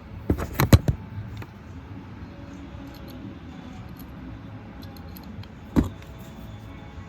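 Metal clicks and clinks of a welding rod being set into the serrated jaws of a stick-welder electrode holder: a quick cluster about half a second in and a single sharp knock near the end, over a steady low hum.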